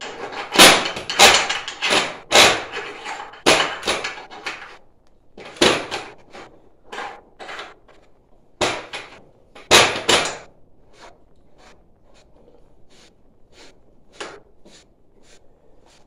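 Stainless steel pipe fittings and corrugated stainless tubing being handled and screwed onto a threaded elbow: a run of clicks, knocks and scrapes, loudest in the first few seconds and again about ten seconds in, then only a few faint taps near the end.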